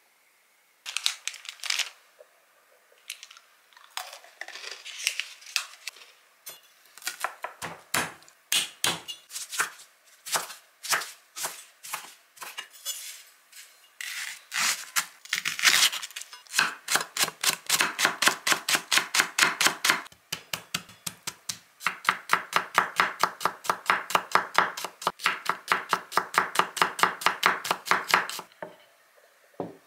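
A kitchen knife chopping green onion and then mincing garlic on a wooden cutting board. The cuts are separate and uneven at first, then become rapid, even chopping several times a second in the second half, stopping shortly before the end.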